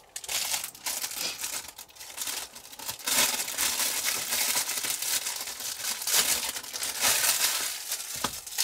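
Plastic bags being handled, crinkling and rustling in a continuous run of crackly rustles that grows louder a few seconds in.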